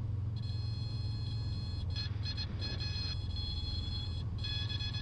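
Single-engine piston aircraft engine running at low power as the plane rolls out after landing, heard in the cockpit as a steady low drone. Over it, a high electronic whine of several steady tones cuts in and out irregularly.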